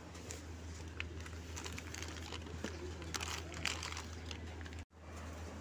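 Shop ambience with a steady low hum, and crinkling of plastic coffee packets with scattered clicks, densest around the middle. The sound cuts out for an instant near the end.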